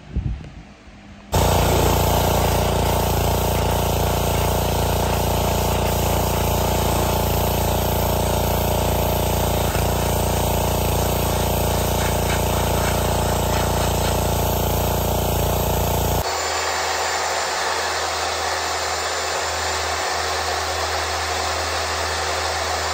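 Pressure washer running, a steady motor hum under the hiss of its spray on wooden boards, starting suddenly about a second in. It cuts off near the end and a different, quieter steady whirring noise takes over.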